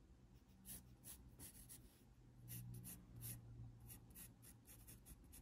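Faint scratching of a graphite pencil on thick watercolor paper, a run of short strokes one after another.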